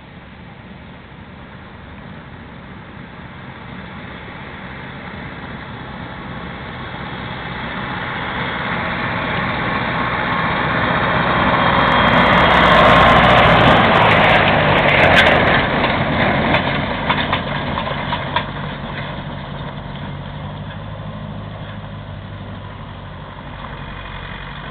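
Engine of a farm machine driving past, growing steadily louder as it approaches and fading as it moves away, with some rattling as it goes by.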